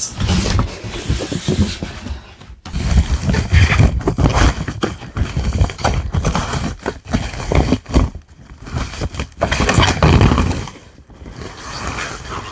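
Plastic wrapping and polystyrene packing rubbing and scraping in irregular bursts, with bumps, as a large speaker is pulled from its box and unwrapped.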